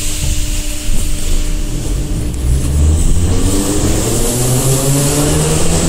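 Moscow Metro 81-717.5 train pulling away from a station, heard from inside the car: the rumble builds with a knock about a second in, and from about halfway the traction motors' whine rises steadily in pitch as the train gathers speed.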